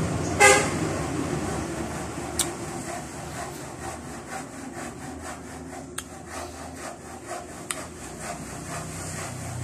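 Close-miked mouth sounds of eating santol: wet sucking and chewing on the white pulp, in an even rhythm of about three smacks a second. A brief vocal sound comes about half a second in.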